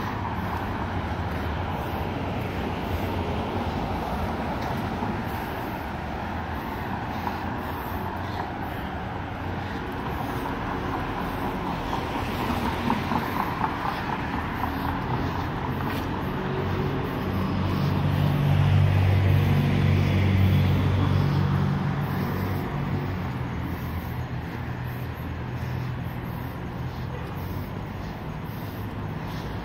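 Street traffic: a steady background hum of cars, with one vehicle passing close about two-thirds of the way through, its low engine rumble swelling and then fading.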